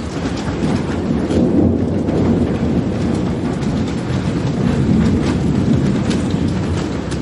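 Steady rain of medium strength falling, with a soft, almost constant low thunder rumble that swells twice.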